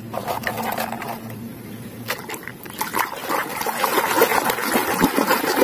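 Muddy toys clattering in a plastic basket as one is picked out, then a hand swishing and splashing the toy in water to wash off the mud, the splashing growing louder.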